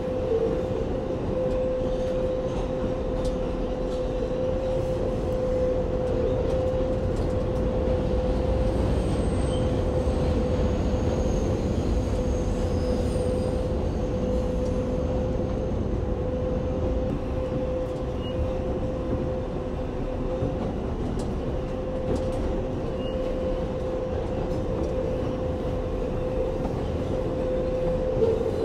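New York City Subway 7 train running at speed, heard from on board: a steady rumble of wheels on the track with a constant hum held at one pitch.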